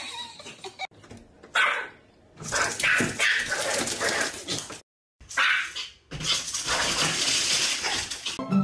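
A small fluffy dog barking in short bursts, with several abrupt cuts in between. Near the end comes a steadier rustling as a dog noses into a crinkly bag.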